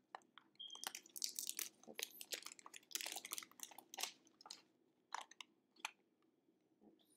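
Cellophane wrapper crinkling and crackling as it is pulled off a small cardboard perfume box, in irregular crackles that are busiest in the first few seconds and sparser near the end.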